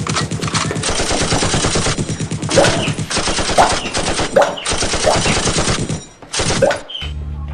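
Rapid automatic gunfire: a fast, unbroken stream of shots for about six seconds, a short break, then one more brief burst.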